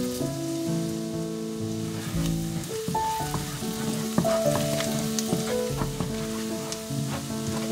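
Minced garlic and red chili flakes sizzling in butter and oil in a frying pan, with a wooden spatula stirring and clicking against the pan. Background music with sustained, slowly changing notes plays over it.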